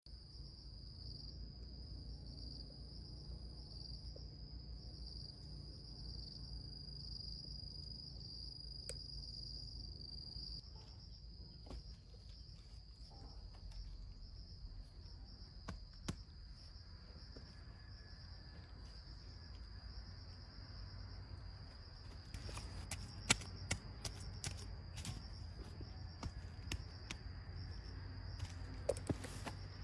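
Insects droning in a steady high-pitched buzz, with a second, higher buzz that stops about a third of the way through. In the last third, a run of sharp clicks and knocks comes in over the buzz.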